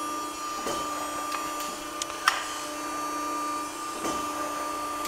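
65-ton CNC hydraulic press brake cycling: steady hum of its running hydraulic pump, with a few light clicks and knocks as the ram and back gauge move.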